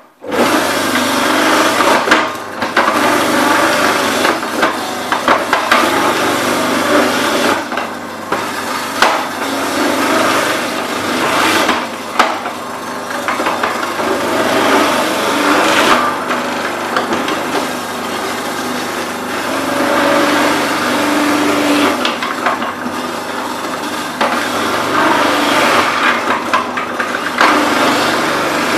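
Electric vegetable grater running and shredding sticks of raw celeriac, a continuous noisy grinding that rises and dips as pieces are fed through, with occasional sharp knocks.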